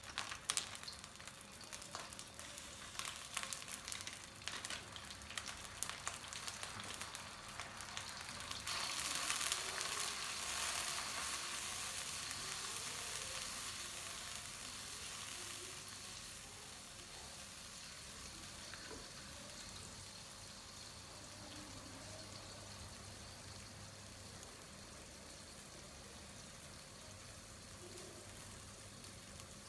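Chopped chilli and aromatics frying in oil in a wok, crackling and popping as a spatula stirs them. About nine seconds in the sizzle swells to a louder hiss as more goes into the pan, then it eases into a steadier, gradually quieter sizzle.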